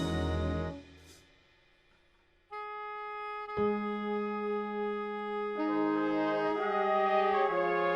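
Brass ensemble music: a full chord cuts off under a second in, and after a short pause held notes come in one part at a time, a single note first, then a lower one, then more parts joining to build a sustained chord.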